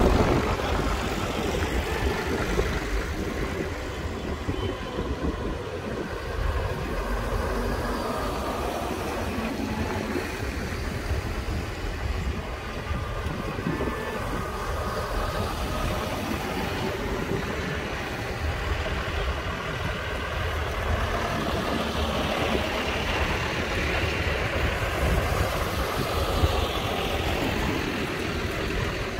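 Diesel engines of a line of tractors running as they drive past one after another, growing a little louder after about twenty seconds as one draws close.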